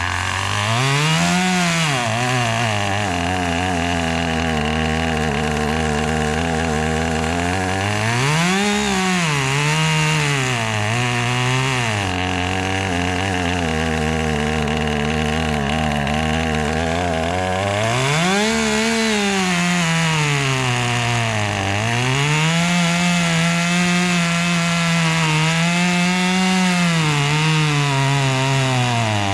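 Brand-new Husqvarna 540 XP Mark III two-stroke chainsaw on its first run, its auto-tune not yet set. The engine revs up sharply several times, falls back to a low idle twice, and over the last third runs near full throttle with its pitch wavering up and down, as when cutting into a log.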